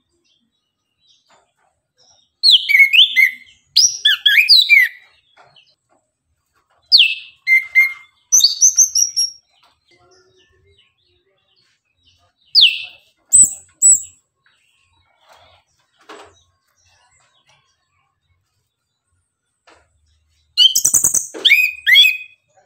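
Chestnut-capped thrush (anis kembang) singing in short bursts of quick whistled notes, many sliding down in pitch, with pauses of a few seconds between bursts.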